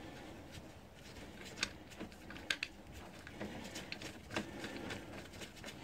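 Faint, irregular small metallic clicks and taps as the oil drain plug is threaded back into the sump pan by a gloved hand after the engine oil has drained.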